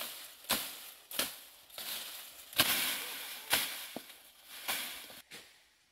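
A long blade chopping through tall grass and reed stems, about six sharp strokes roughly a second apart, each followed by the rustle of falling stalks.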